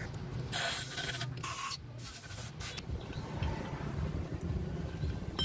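Two short hissing blasts over a low steady hum.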